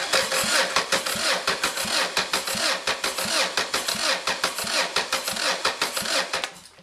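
Starter motor of a bare Honda B18C1 engine, jumped from a car battery, cranking the engine over without it firing, a rhythmic chugging as each cylinder comes up on compression, for a compression test with a gauge in cylinder number 1. The cranking stops abruptly near the end.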